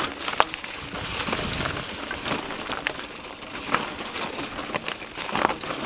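Mountain bike descending a rocky dirt trail: tyres crunching over loose stones and gravel, with many irregular sharp clicks and knocks as the bike rattles over the bumps.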